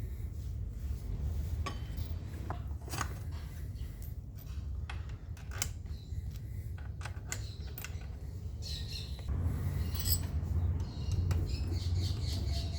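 Scattered metallic clinks and knocks of hand tools and metal parts being handled, over a steady low hum, with the high clinks busier from about nine seconds in.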